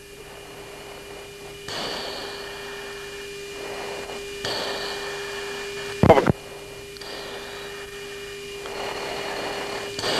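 Cockpit radio and intercom audio from a US Air Force jet, with no one talking. A steady hum runs through it, under swells of hiss that each last a second or two, and there is one short sharp pop about six seconds in.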